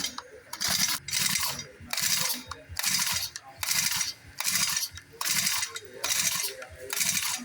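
Hand tool worked back and forth in a steady rhythm, about ten scraping strokes at a bit more than one a second, as in filing or sawing during engine repair work.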